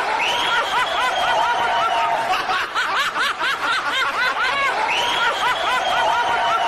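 A high-pitched snickering laugh: quick rising-and-falling 'heh' pulses, then a long drawn-out squeal, the whole pattern repeating twice.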